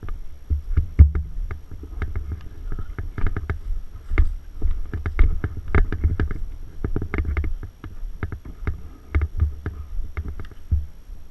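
Irregular knocks, thumps and rustles over a low rumble, as from someone walking with a camera carried on the body: footsteps and gear bumping against the microphone.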